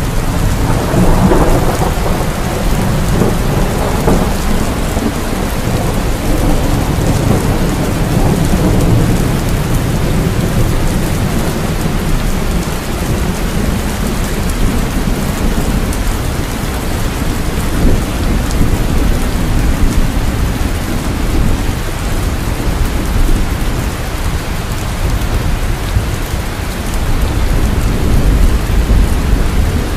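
Heavy rain falling steadily, with thunder rumbling low and continuously underneath; the rumble swells up right at the start.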